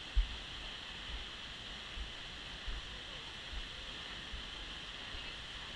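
Steady rushing of the Seljalandsfoss waterfall, with irregular low thumps on the microphone, the sharpest about a quarter second in.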